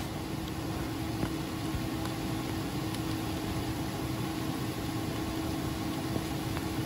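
A steady mechanical hum with one constant low tone, unchanging throughout.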